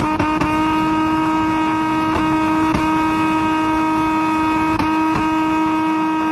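Nissan 350Z's V6 held at high, unchanging revs, a steady drone, with a few sharp pops from the exhaust as it spits flames.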